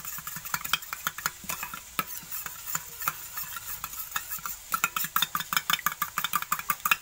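Metal spoon stirring a runny sauce mix in a small stainless steel bowl, clinking and scraping against the sides in quick repeated strokes that come thickest near the end.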